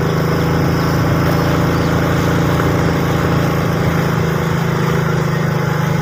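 Motorcycle engine running at a steady speed while riding, heard from on the bike, with a steady hiss of wind and road noise.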